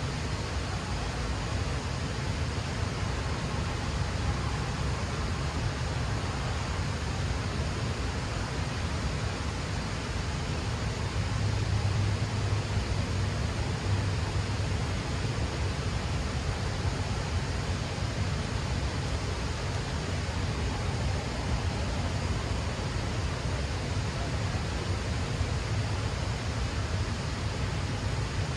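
Steady rushing noise of water pouring through the dam's gates, with a deep low rumble under it that swells a little about halfway through.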